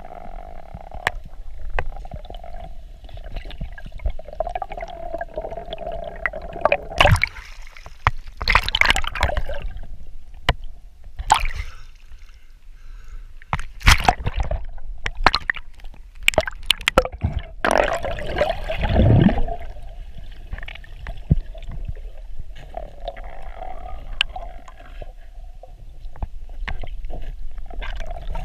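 Underwater sound through a GoPro HERO4's waterproof housing: water gurgling and sloshing with many scattered clicks and knocks and a few louder rushes, over a steady low hum.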